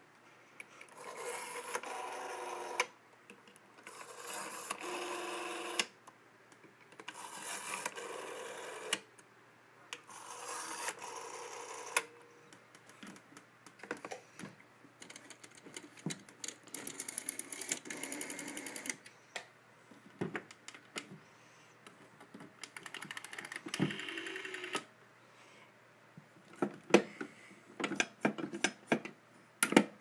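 Rotary telephone dials whirring as they spin back, in several bursts of a second or two, followed near the end by sharp clicks and knocks of the phones being handled.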